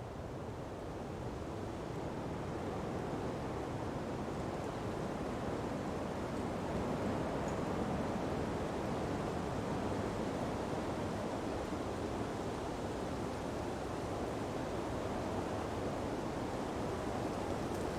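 Sea breeze blowing through palm fronds, with a wash of surf, a steady rushing that swells a little over the first few seconds and then holds even.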